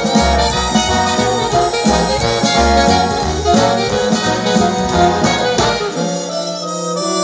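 Instrumental music with horns, played back through a pair of Bose 101 MMG speakers for a listening test. The bass line stops about six seconds in, leaving a single held note.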